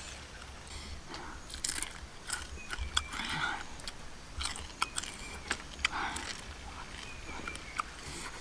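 A person eating fried scorpion: crunching, chewing and lip-smacking, with irregular sharp crackles throughout.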